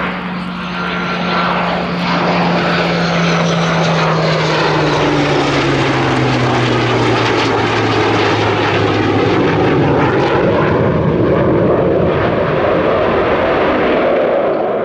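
A MiG-29 jet fighter and a Hawker Hurricane with its Rolls-Royce Merlin 35 piston engine flying past together in close formation. There is loud, steady jet noise from the MiG-29's twin turbofans, and under it a low tone that falls steadily in pitch as the pair pass.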